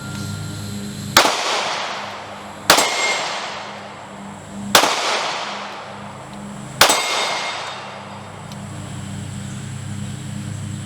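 Four single pistol shots from a Smith & Wesson Shield Plus fired one-handed at steel targets, about one and a half to two seconds apart, each sharp crack echoing away over the next second or so, with a faint ring after a couple of them.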